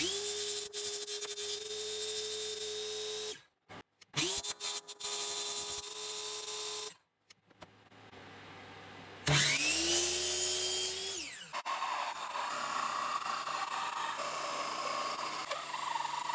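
Electric power-tool motor in three separate runs, each spinning up quickly to a steady whine and the last one winding down with a falling pitch, with abrupt breaks between them. It is followed by a rougher, noisier working sound from the tool for the last few seconds.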